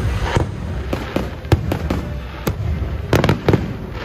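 Aerial fireworks bursting overhead: a fast series of sharp bangs, about a dozen in four seconds, several coming in quick pairs, over a continuous low rumble.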